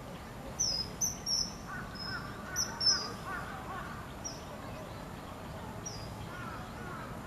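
Common kingfisher giving short, high, shrill calls, each sliding down in pitch: a quick run of them in the first three seconds, then two more spaced apart. The female is calling toward a second kingfisher nearby.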